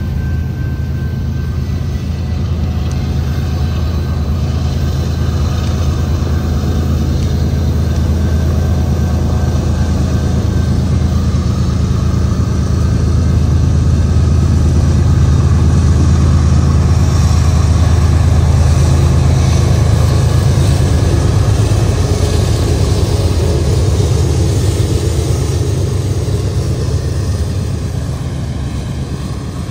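Diesel-electric freight locomotives passing, their engines a steady low drone that swells to its loudest around the middle and then eases off.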